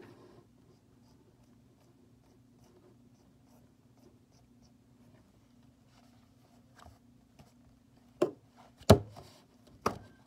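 Faint scratching of a pencil drawing on notebook paper, then three sharp knocks in the last two seconds.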